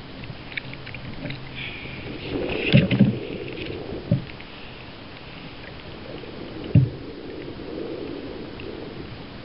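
Handling noise on a fishing kayak while a hooked fish is fought: rustling and dull knocks of the rod, reel and body against the hull, with the loudest thumps about three seconds in and again near seven seconds.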